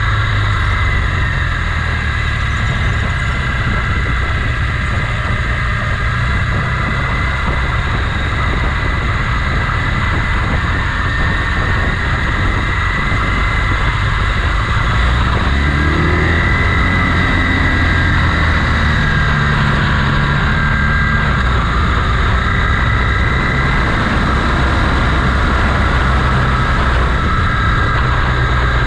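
Motorcycle engine running under way, with a steady rush of noise over it; about halfway through the engine pitch rises and then falls again.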